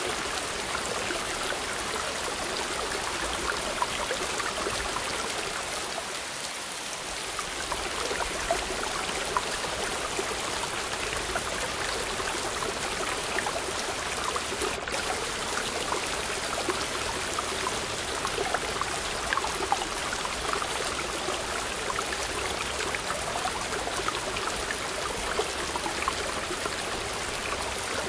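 Rocky mountain stream running over boulders, with small waterfalls pouring into pools: a steady rush and splash of water.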